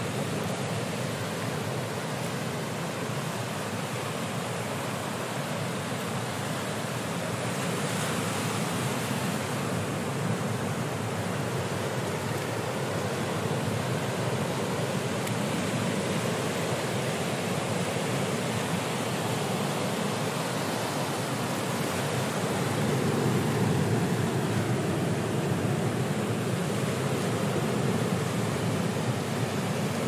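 Ocean surf breaking and washing in a continuous roar of water, with waves swelling louder now and then, most of all in the latter part.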